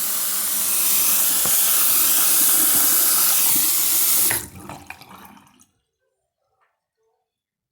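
Water running hard from a tap. It cuts off about four and a half seconds in, with a brief trickle after.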